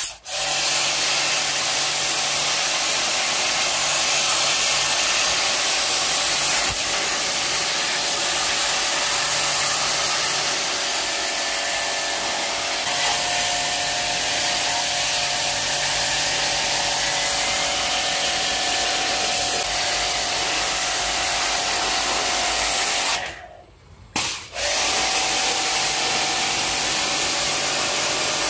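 Steady hiss of a pressure-washer water jet spraying into an air conditioner indoor unit to wash its dirty blower wheel. A faint pump hum runs underneath. The spray stops for about a second near the end, then starts again.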